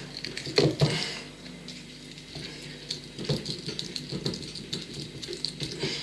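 Victorinox Swiss Army knife awl being twisted and pushed into a coconut's fibrous shell: irregular scratching and crackling, with a couple of sharper knocks about a second in.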